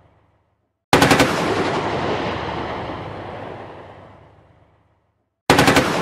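Anti-aircraft heavy machine gun firing two short, rapid bursts of about five shots each, some four and a half seconds apart. Each burst is followed by a long echo that dies away over several seconds.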